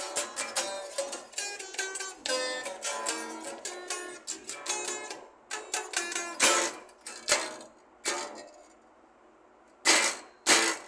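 Instrumental passage on a plucked string instrument: single picked notes and chords that ring and fade, thinning to a brief pause about nine seconds in before a few more plucks.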